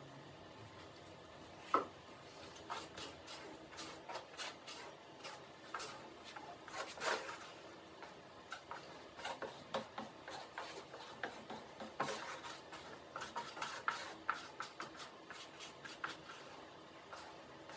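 Hand work at an epoxy-and-fiberglass layup, sped up: a quick, irregular run of small clicks and taps. The sharpest tap comes about two seconds in.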